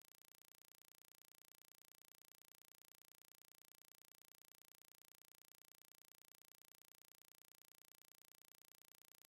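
Near silence: only a faint, even hiss with no distinct sounds.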